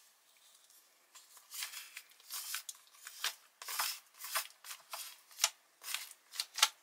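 Foil MRE retort pouch crinkling and rustling as a spoon scrapes the meal out of it, in a run of uneven crinkles that starts about a second in.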